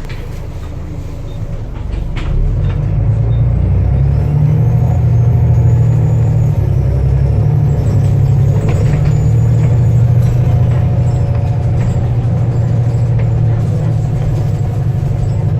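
Volvo B7TL bus's turbocharged diesel engine pulling under load, its drone growing louder about two seconds in. A high-pitched turbo whistle rises and falls over the engine.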